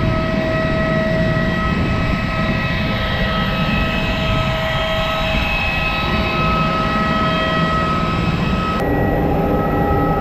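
Steady jet-aircraft whine on an airport apron: several held high tones over a loud low rumble, with the tones shifting abruptly near the end.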